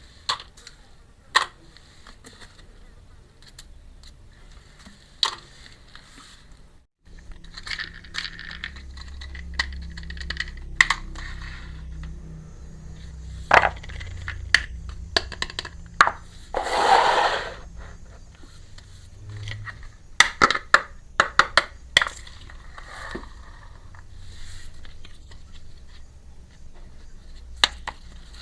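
Small miniature toy kitchenware pieces being handled: scattered sharp clicks and taps as pieces are set down and knock together, with scrapes and a longer rustling scrape a little past halfway.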